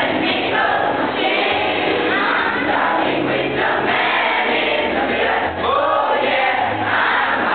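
A chorus of teenage boys and girls singing together, many voices carrying one continuous melody.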